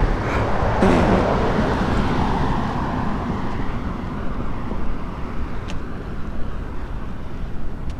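Outdoor road traffic noise: a vehicle passes, louder over the first few seconds and then fading into a steady low rumble, with a couple of faint clicks near the end.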